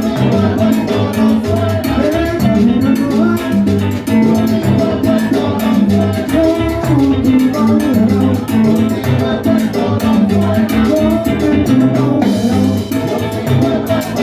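Salsa band playing salsa music, a busy percussion beat under pitched instruments.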